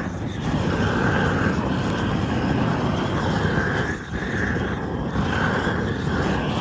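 Weed Dragon propane weed torch burning steadily, a loud rushing flame from the burner, with a brief dip about four seconds in.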